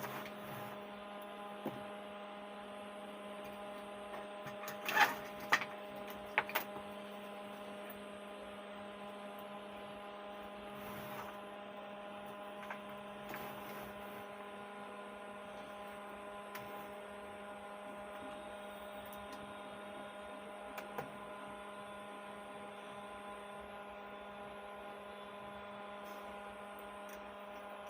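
Steady electrical mains hum made of several constant tones. A few short clicks break in around five seconds and six and a half seconds in.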